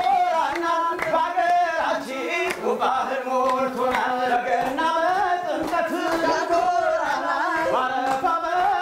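A group of voices singing together in a chant-like song, with hand claps.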